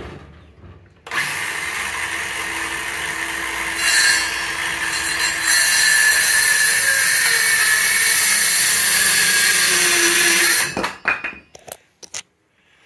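Electric jigsaw cutting through a 2x4: a steady motor-and-blade noise starting about a second in, growing louder partway through and stopping abruptly, followed by a few knocks as the saw and wood are set down.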